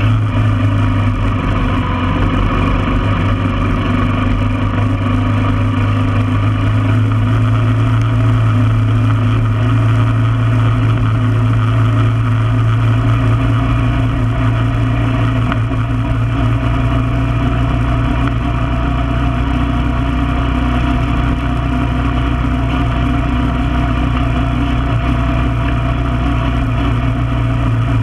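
1995 Honda Foreman ATV's single-cylinder four-stroke engine running at a steady, even speed while the quad is ridden at a constant pace, with no revving up or down.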